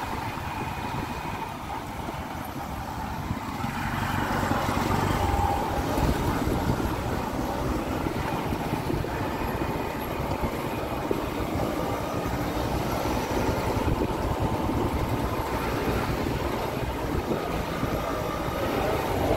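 Steady road noise from riding through town traffic: a continuous low rumble of engines and tyres, with auto-rickshaws running just ahead.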